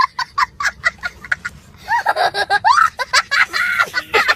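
A person laughing in quick repeated bursts, then longer laughs that rise and fall in pitch.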